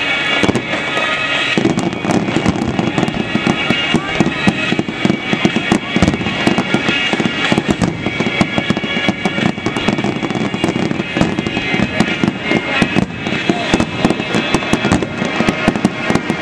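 Fireworks popping and crackling in rapid, overlapping bursts, with music underneath.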